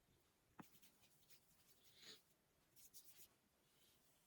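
Near silence: room tone with a faint click about half a second in and a few faint soft rustles.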